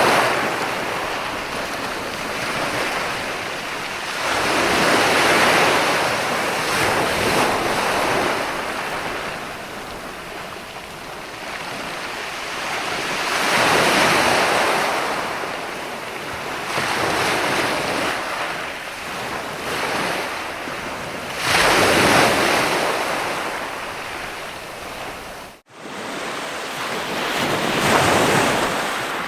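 Ocean surf: waves break and wash in about every eight seconds, each one swelling into a loud rush of noise and then fading back. Near three-quarters of the way through, the sound cuts out for an instant.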